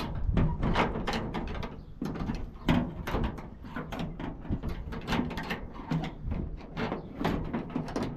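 A hammer striking a small, old steel padlock again and again: irregular metal knocks, about two to three a second, with dull thuds beneath. The lock is nearly broken and giving way under the blows.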